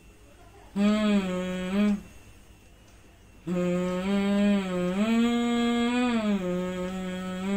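A boy humming a slow tune with his mouth closed: a short phrase of about a second, then after a pause a longer phrase of about four seconds that steps up in pitch and back down.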